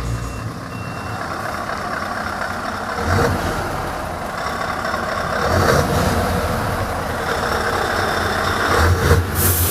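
Scania 770S truck's 16-litre V8 running, its low rumble growing stronger a few seconds in, over road and tyre noise. A short, loud hiss near the end.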